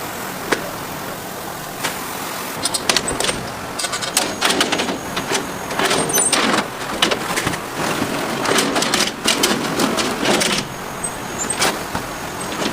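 Crispy food being bitten and chewed, a dense run of crackly crunches through the middle of the stretch, over a steady background noise.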